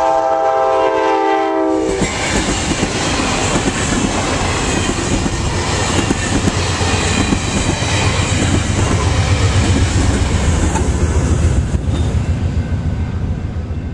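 Passenger train's horn sounding a chord of several tones that cuts off about two seconds in, then the train passing close by: a heavy rumble of wheels on rail with the clickety-clack of the coaches going over the joints, fading near the end.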